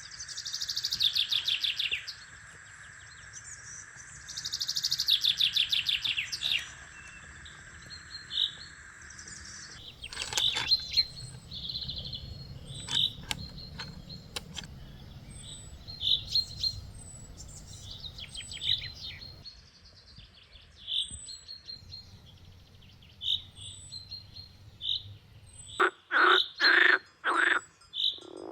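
Several songbirds singing: two loud, rapid trills in the first seconds, then many short repeated chirps and thin high whistled notes, with a few louder calls near the end.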